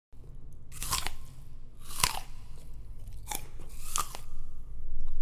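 Sharp, crisp crunching, about one crunch a second, five in all, over a steady low rumble; louder near the end.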